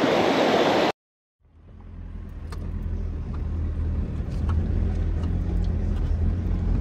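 Rushing rapids water for about a second, cut off abruptly. After a short silence the steady low rumble of a vehicle driving on a rough dirt track fades in, heard from inside the cabin, with a few light clicks and rattles.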